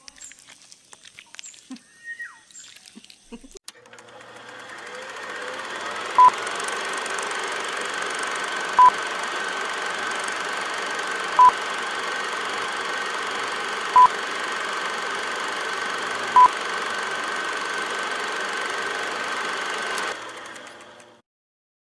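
Electronic beeps over a steady hiss and hum with a held high tone: a short beep at one pitch sounds five times, evenly about two and a half seconds apart, before the whole bed fades out near the end. A few faint ticks come before the hum fades in.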